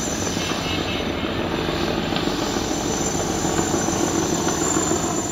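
Diesel engines of a large multi-deck river passenger launch running as it passes close, a steady loud droning rumble with water rushing along the hull and a thin high whine over it.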